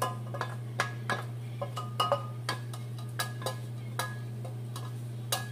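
A kitchen utensil clinking and scraping against a stainless steel frying pan as fried shrimp heads and tomato are scraped out into a blender jar: irregular metallic clinks, a few a second, some ringing briefly, over a steady low hum.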